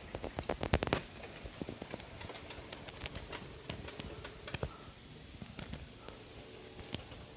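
Handling noise from a camera being moved about: a quick run of clicks and knocks in the first second, then scattered light taps and rustles.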